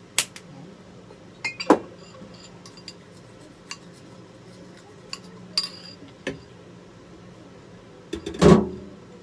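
A utensil clinking and tapping against a ceramic bowl of tempura batter as it is mixed: scattered sharp clinks, and a louder knock with a short ring near the end.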